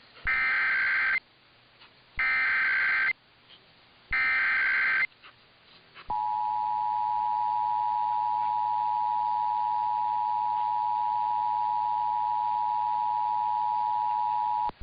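Emergency Alert System SAME header: three bursts of shrill data tones, each about a second long and a second apart. About six seconds in, the EAS two-tone attention signal starts, a steady dual tone held for about eight and a half seconds.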